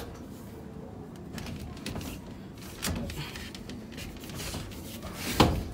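Black plastic water pipe being worked by hand into a black plastic elbow fitting: rubbing and handling noise with a few scattered clicks, and one sharper knock near the end.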